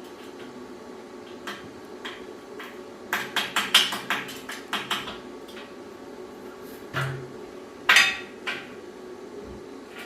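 A run of sharp knocks and clatters, about eight in quick succession some three seconds in, then a few more single knocks, the loudest about eight seconds in, over a steady low hum.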